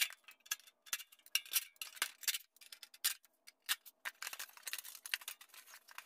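A cordless drill backing screws out of an electric space heater's sheet-metal case: a faint motor whine under many irregular light metallic clicks and rattles.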